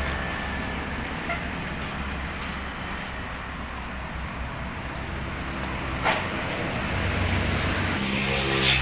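Road traffic noise: vehicle engines running with tyre noise and a low engine hum that strengthens near the end, and one sharp click about six seconds in.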